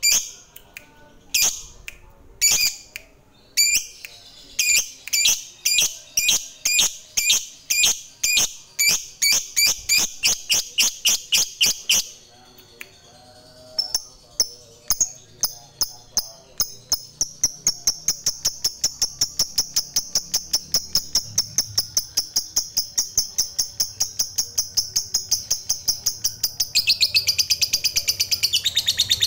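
Lovebird giving sharp, shrill repeated calls: a few scattered ones, then about two a second, a short pause about halfway through, then a long, fast, unbroken chattering run that gets louder near the end. This long rapid chatter is the 'ngekek panjang' that hobbyists play to other lovebirds to set them calling.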